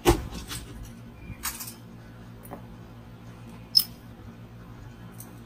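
A loud knock at the very start, then scattered light clicks and a brief scrape, and one more sharp click near the end: small metal hand tools such as hex keys and screws being handled on a wooden workbench.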